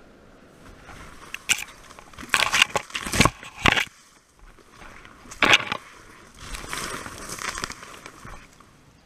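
Pine branches and dry grass brushing and crackling against clothing and the camera as someone pushes through a dense young pine thicket, in a string of loud rustling bursts.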